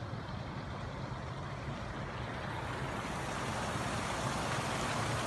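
Steady rumble and hiss of road traffic, growing gradually louder.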